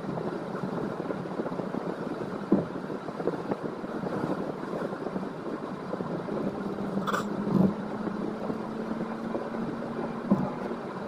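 Road and engine noise inside a moving car's cabin: a steady rumble, with a few short knocks and taps scattered through it and a faint steady hum joining about halfway.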